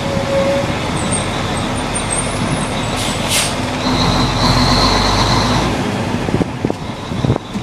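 Fire truck driving along a street, its engine and road noise heard from the open rear hose bed. The engine grows louder for a couple of seconds a little past halfway.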